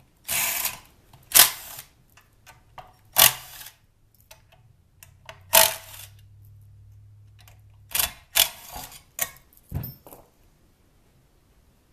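Cordless impact driver backing out the cover screws of a kayak pedal drive's housing, run in several short bursts of clatter, with smaller clicks from the screws and tool between them.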